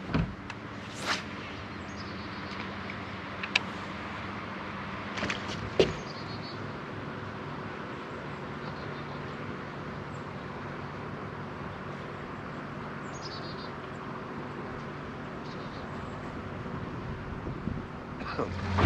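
Steady low hum with a few sharp clicks about one, three and a half and six seconds in, and a couple of faint high chirps.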